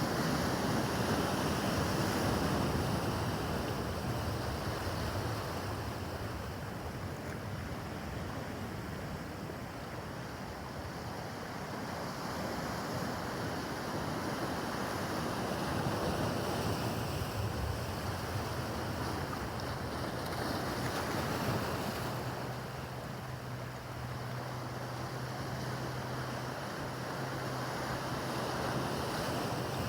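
Choppy harbor water and waves washing, with wind buffeting the microphone. Under it runs the low steady drone of a motorboat's engine, clearer in the second half.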